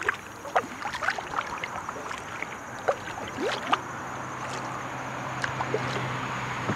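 Kayak paddling: water dripping and plopping off the paddle blades as they dip and lift, in short irregular drips and splashes. A low steady hum comes in about halfway through.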